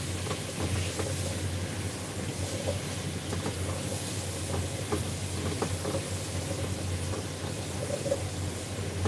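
Food frying in a pan with a steady sizzling hiss, and a utensil clicking and scraping against the pan as it is stirred, over a constant low hum.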